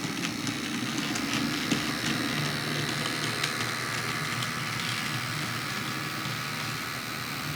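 A pair of MTB TT-scale model locomotives running on a model railway track: a steady electric motor hum and wheel noise, with faint light clicks.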